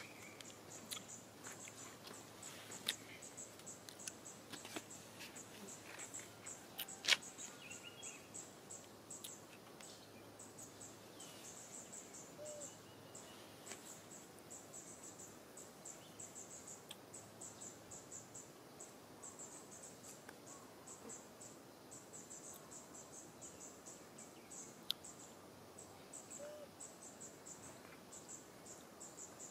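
Insects chirping in a steady train of short, high pulses, faint, with a few sharp clicks, the loudest about seven seconds in.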